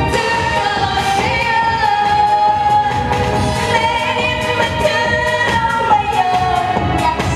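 A woman singing a Korean song into a microphone over backing music with a steady drum beat. She holds long notes, stepping down in pitch after about two seconds and sliding lower about six seconds in.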